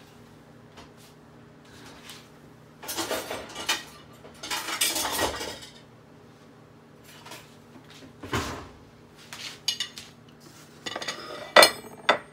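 Dishes and cutlery clattering: rattling and scraping twice, then scattered clinks. Near the end comes one sharp knock as a white ceramic plate is set down on the counter.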